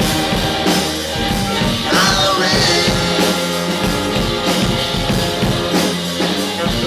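A rock band with a horn section playing live, with drums, guitar and singing.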